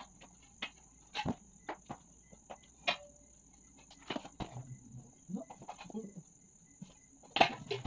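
Pink tubular frame pieces of a standing mirror being handled during assembly: scattered light taps, clicks and knocks, with the loudest knock near the end.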